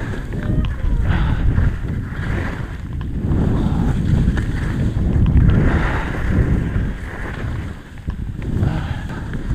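Skis scraping and hissing over firm snow during steep-slope turns, swelling with each turn about every second or two, with wind buffeting the microphone.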